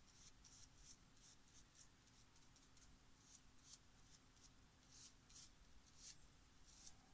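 Faint, short scratchy rubs at irregular spacing: a paper tissue being wiped over the face of a hand-carved eraser stamp.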